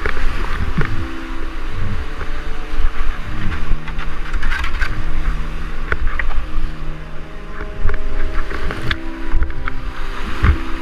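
White-water rapids rushing and splashing around a kayak running a drop, with water hitting the camera and a heavy low rumble on the microphone.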